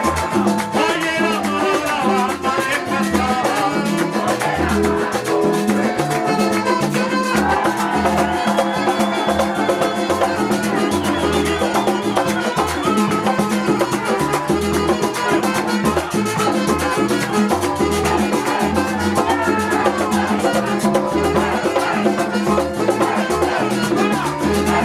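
Latin dance music with drums and a steady, regular bass beat under a running melody.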